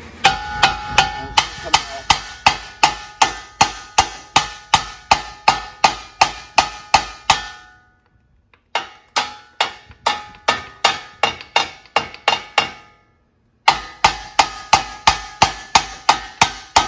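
Rapid hammer blows on a car's steel front steering knuckle (spindle), knocking it loose: sharp ringing metal strikes about three a second, in three runs broken by two short pauses.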